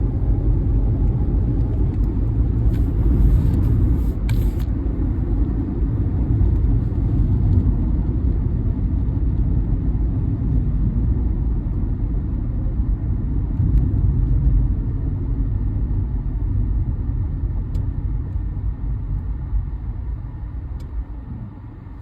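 Low, steady rumble of passing vehicles that fades over the last few seconds.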